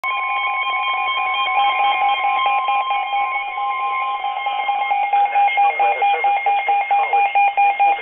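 Weather radio alert tones for a flood warning. A steady electronic tone stops about five seconds in, while a sharp, rapidly pulsing beeping alarm goes on at about three beeps a second.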